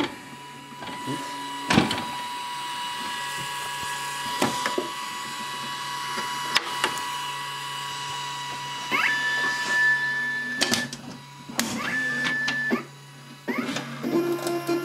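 Zebra P320i card printer running a card through, with a steady mechanical hum and scattered clicks. About nine seconds in, a motor whine rises and then holds one pitch for a second or so, and a shorter whine comes again near twelve seconds.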